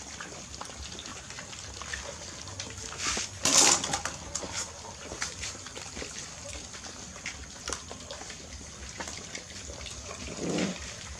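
A litter of puppies eating from bowls together: wet lapping and chewing with many small clicks of teeth and muzzles against the bowls, and one louder noisy clatter about three and a half seconds in.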